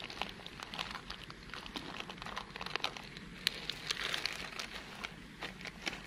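Plastic bag crinkling and rustling as it is handled, with many irregular sharp crackles.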